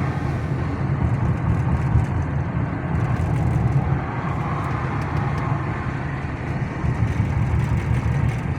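Chrysler 300C driving: steady road and tyre noise with the engine running, and no knocks or rattles from the newly replaced shock absorbers and bushings.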